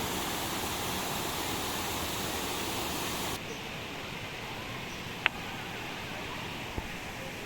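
Steady rush of a waterfall. About three seconds in it suddenly becomes quieter and duller, and a single sharp click comes about five seconds in.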